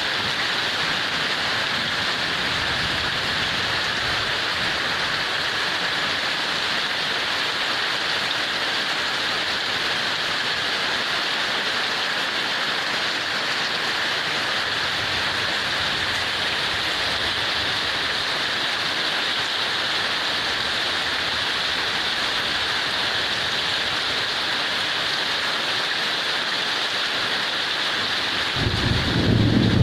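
Heavy rain falling in a steady, even hiss. Near the end a low rumble swells in and becomes the loudest sound.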